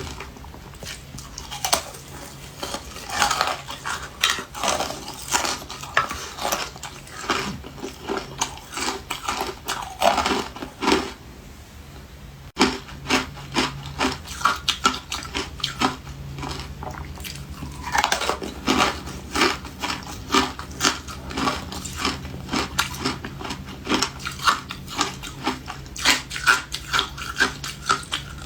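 A person biting and chewing refrozen ice close to the microphone: dense, irregular crisp crunches.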